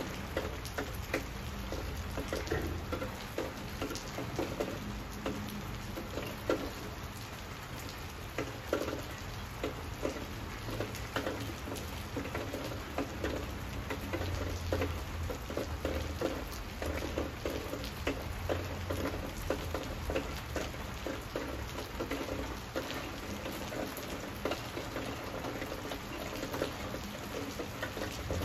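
Steady rain falling on foliage, a dense patter of individual drops.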